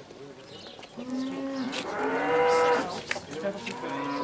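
Cattle mooing: a long low moo starts about a second in and rises into a louder, higher call, then a second, shorter low moo comes near the end.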